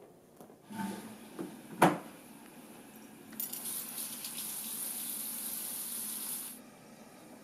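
A sharp knock, then water running steadily from a tap for about three seconds before it is shut off suddenly.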